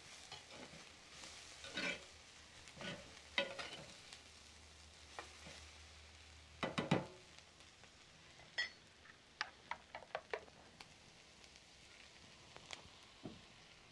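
A plastic spoon stirring green beans and onion in a clay cazuela, with scraping strokes over a faint sizzle, the loudest about seven seconds in. Later come a handful of light clicks and taps as the spoon works the bowl of beaten eggs being poured in.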